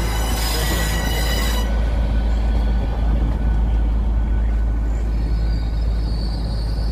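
Train wheels squealing on the rails in a steady high-pitched whine that cuts off about two seconds in, over a continuous low rumble.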